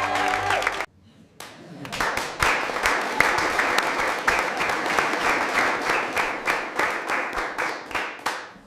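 Crowd applauding, starting about a second and a half in and fading out near the end.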